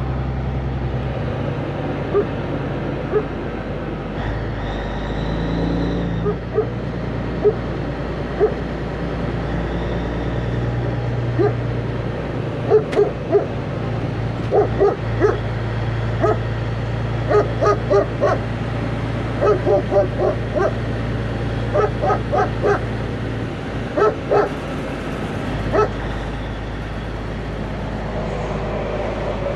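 A dog barking over and over in short sharp barks, often in quick runs of two or three, every second or two, over the steady low drone of a running diesel truck engine.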